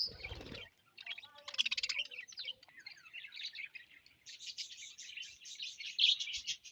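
Budgerigars chirping and chattering together: a stream of quick, high chirps and warbles that becomes denser and more continuous in the second half. A brief low noise comes at the very start.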